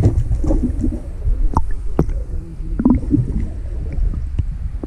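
Water gurgling over a steady low rumble, broken by a few sharp knocks.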